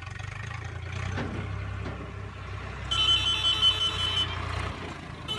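Swaraj 744 FE tractor's three-cylinder diesel engine running as it pulls a loaded trolley past close by. About three seconds in a loud, high electronic beeping melody joins it, breaks off after about a second, and starts again near the end.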